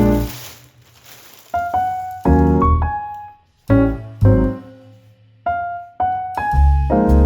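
Background piano music: single notes and chords struck every half second to second, each ringing out and dying away.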